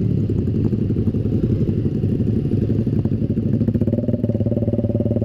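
Yamaha Xabre's single-cylinder 150 cc engine running at low speed, heard from on the bike as it rides over a rough dirt and sand track, picking up a little about four seconds in.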